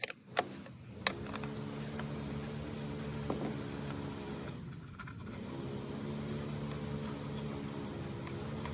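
A few sharp metallic clicks of a spanner working the bolts of a tractor's alternator guard, then a steady low mechanical drone.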